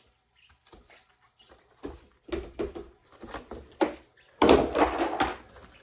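Knocks and rustling as cardboard and fleece cage items are handled and lifted out of a guinea pig enclosure. A louder, rougher rustle comes about four and a half seconds in.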